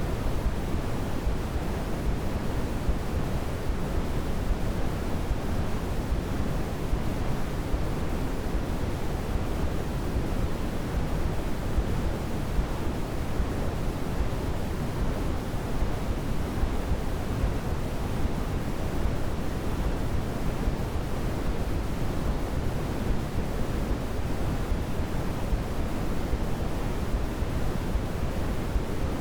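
Sleep-aid white noise: a continuous, unchanging hiss, deep rather than bright.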